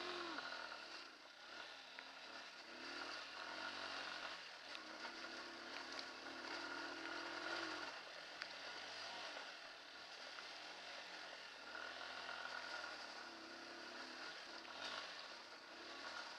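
Hartford VR150's 150cc single-cylinder air-cooled engine running under way on a rough gravel track, its revs rising and falling with the throttle, climbing steadily for a few seconds about halfway through and then dropping. A few short knocks come through over the engine.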